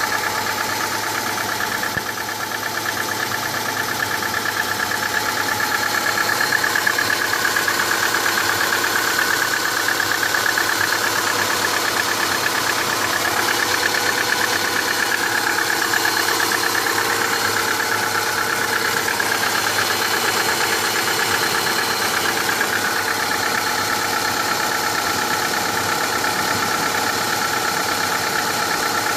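Subaru Impreza's EJ18 flat-four engine running, near idle, with a knock. The knock is present with the engine hot, and the owner suspects the fourth cylinder.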